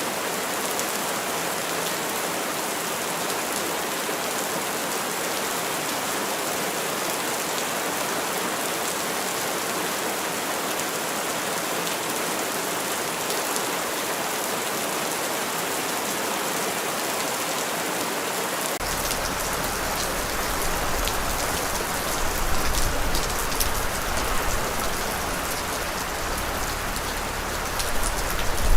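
Steady rain falling, an even hiss with fine patter of drops. About two-thirds of the way through, a deep low rumble comes in suddenly, and the rain swells louder with sharper drop hits toward the end.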